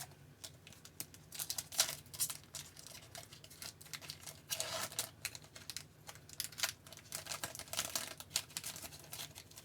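Hockey trading cards being handled and flipped one after another: irregular quick dry clicks and card-on-card slides, with a longer rustle about halfway through.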